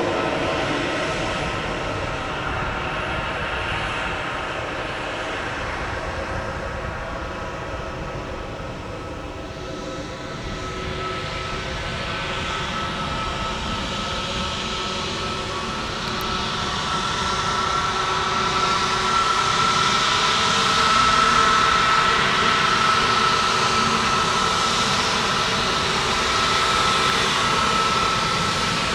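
Airbus A320neo's Pratt & Whitney PW1100G geared turbofan engines running at low power, a steady whine over a rumble. The sound dips, then swells louder past the middle, with a high tone coming up clearly.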